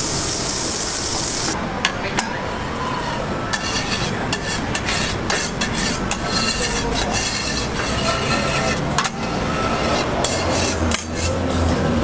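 Butter sizzling on a hot steel flat-top griddle for the first second or so, then a metal spatula scraping and rasping across the griddle plate, with scattered clicks, as it spreads the melted butter.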